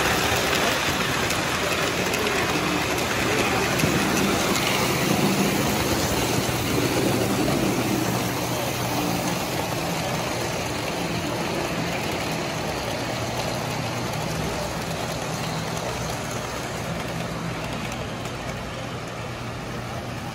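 Three-rail O-gauge model trains running on tinplate track: a steady rumble of wheels and motors with a low hum, easing off a little toward the end.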